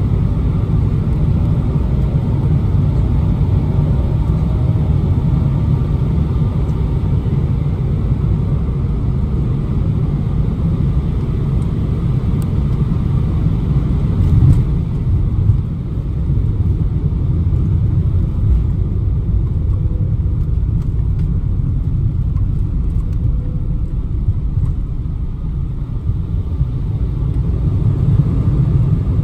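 Airliner cabin noise on final approach, heard from a window seat over the wing: a steady low rumble of the jet engines and rushing air. It swells briefly about halfway through.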